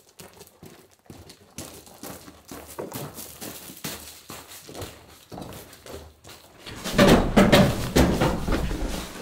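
Footsteps crunching on gravel as a long cardboard-wrapped roll-up door is carried in. From about seven seconds in, louder bumping and scraping as the wrapped door is handled right beside the microphone.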